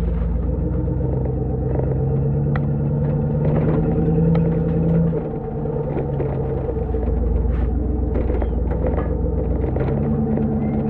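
1997 Jeep Grand Cherokee's 5.2-litre V8 running through a Magnaflow muffler and catalytic converter while being driven, a steady low exhaust rumble. The engine note climbs slightly, then drops abruptly about five seconds in and settles, as at a gear change or lift off the throttle.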